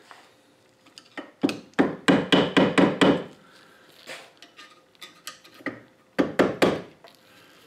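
Hammer tapping a screwdriver against the steel snap ring in the valve housing bore of a Ford power steering gearbox, working it around to loosen it in its groove. A quick run of taps comes about a second and a half in, then a couple of single taps, then a short run of three or four near the end.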